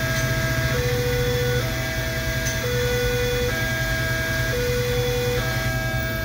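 Indonesian railroad crossing warning alarm sounding: an electronic two-tone signal alternating a higher and a lower tone, each held just under a second, over the steady low hum of idling engines in the waiting traffic.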